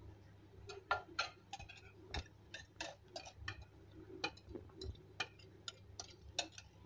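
Omelette egg mixture frying in oil on a flat pan: irregular sharp pops and crackles of spitting oil, a few a second, over a faint low hum.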